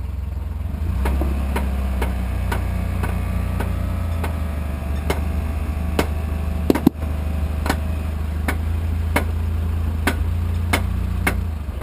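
Pickup truck engine working at low speed while rock crawling, picking up about a second in and easing off near the end, with a regular ticking about twice a second and one sharper knock near the middle.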